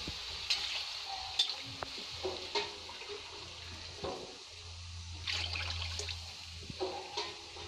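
A slotted steel spoon stirring rice through water in a hot metal pan, clinking and scraping against the pan several times, over a steady faint sizzle. There is a longer scrape about five seconds in.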